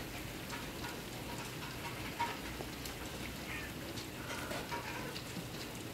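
Steady storm noise from outside: a faint, even hiss of falling precipitation with a light patter and a few soft ticks.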